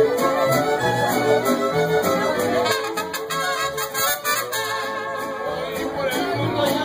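Mariachi band playing a song, with trumpets and violins carrying the melody over harp and guitars.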